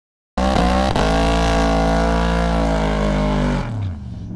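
Drag pickup truck's engine held at high revs through a tyre-smoking burnout, one steady high note, then the revs drop suddenly about three and a half seconds in as the throttle comes off.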